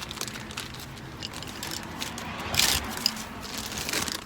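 Crinkling and rustling of the packet holding a new brake pad wear sensor as it is opened, with a louder burst of crackle about two and a half seconds in.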